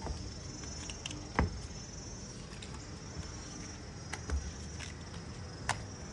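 Steady high-pitched chirring of insects, with a few short knocks, the loudest about a second and a half in.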